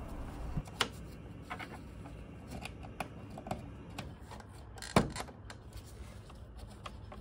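Small plastic clicks and handling noises from a gloved hand fitting the new pump's wiring plug onto a boiler's circuit board, with one sharper click about five seconds in.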